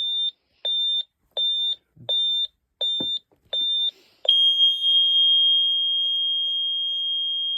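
Ademco LYNX-R alarm keypad's built-in sounder beeping in a steady high-pitched pulse, about six beeps, then, about four seconds in, switching to one continuous high-pitched alarm tone: the entry-delay countdown running out and the system going into alarm.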